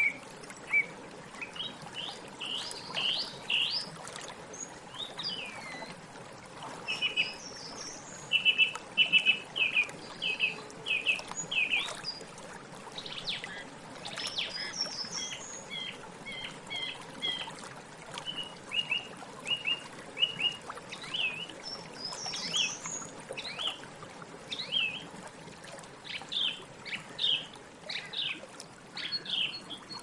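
Song thrush singing: short phrases of clear, whistled notes, each phrase repeated several times in quick succession before the bird switches to a new one.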